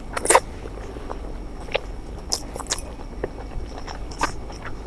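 A person eating close to the microphone: sharp, irregular mouth clicks and smacks while chewing and biting food, with a louder one just after the start.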